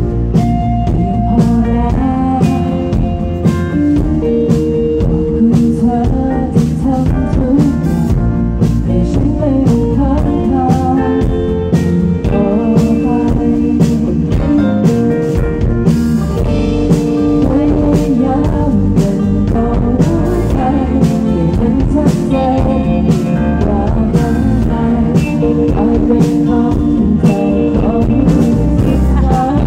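Live band playing a slow song: a singer's voice over acoustic guitar, cello, electric bass and drum kit, with a steady beat.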